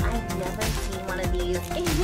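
Upbeat background music with a steady beat and a melody line.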